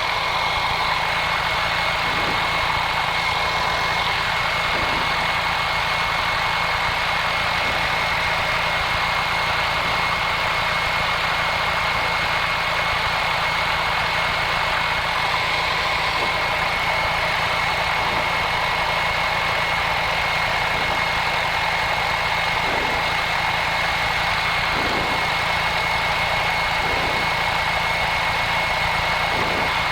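Light aircraft's piston engine idling steadily in the cockpit while the aircraft holds short of the runway, with a thin steady high-pitched whine over the hum.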